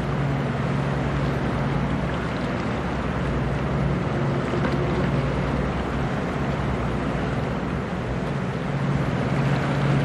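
A 21 m survey boat's engine running at speed, a steady low drone, over a rushing hiss of wind and churning water.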